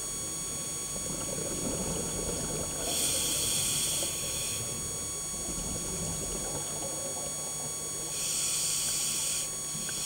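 Scuba diver breathing through a regulator at depth: two long hissing breaths about five seconds apart, and the start of a third at the very end.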